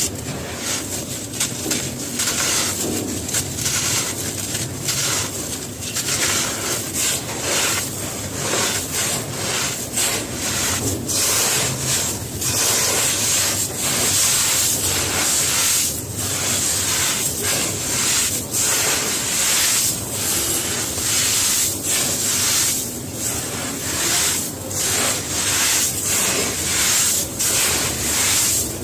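Gritty cement crumbling: a steady, dense crackle of many small snaps and crunches with a gritty hiss.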